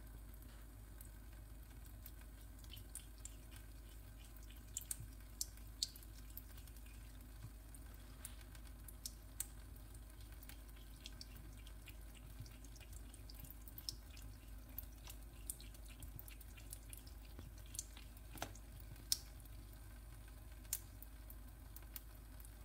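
Thin stream of tap water running into a kitchen sink, with many small irregular drips and splashes as a cat drinks from the stream. One sharper splash stands out near the end.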